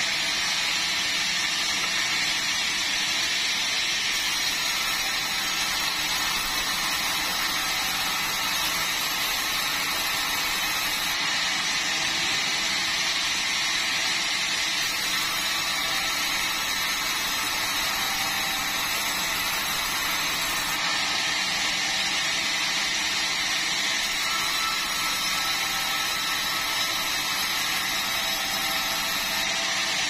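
Sawmill band headsaw running steadily while sawing a bengkirai hardwood log into boards, an even, unbroken noise of blade and wood.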